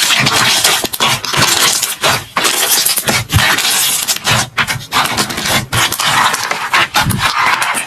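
Slime being squished and kneaded by hand: a continuous crackling, with many small clicks and pops.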